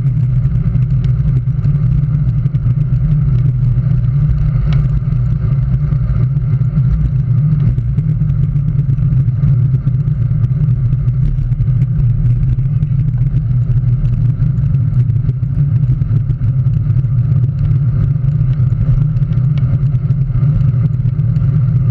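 Steady, loud wind rush and road rumble on a handlebar-mounted camera as a road bicycle rolls along at speed.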